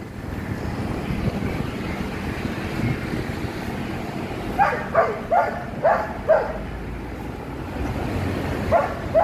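A dog barking: a run of five barks about half a second apart midway through, then two more near the end, over a steady low background rumble.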